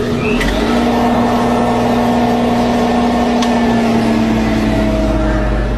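Commercial centrifugal juicer running, with a steady motor hum as ginger is juiced. The hum gets louder and deeper about half a second in, and its pitch sags slightly near the end.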